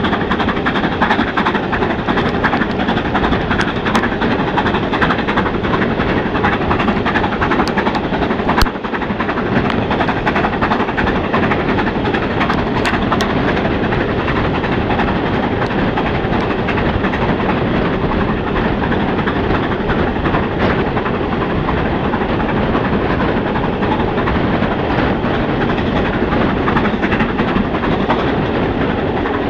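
A steam-hauled train running at speed, heard from an open carriage window behind BR Standard Class 7 'Britannia' Pacific 70013 Oliver Cromwell: a steady loud noise of wind, exhaust and wheels on rail. A few sharp clicks are char from the smokebox striking the camera, the loudest about nine seconds in.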